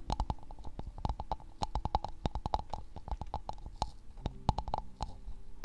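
Fingers squeezing and pulling a soft, sticky material against a binaural microphone's ear, making rapid, irregular sticky clicks and squelching pops.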